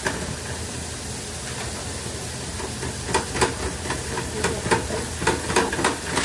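Commercial deep fryer sizzling with baskets of food in hot oil: a steady hiss. From about three seconds in, short clicks and clatter break in over it.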